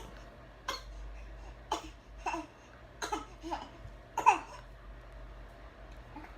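Baby fake-coughing: about seven short, separate little coughs over roughly four seconds, the last one the loudest.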